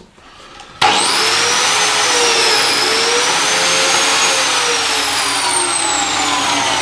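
Einhell TC-BJ 900 biscuit joiner switched on about a second in, its motor running steadily with a whine that drifts up and down in pitch.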